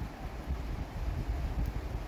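Wind buffeting the microphone: an uneven, gusting low rumble.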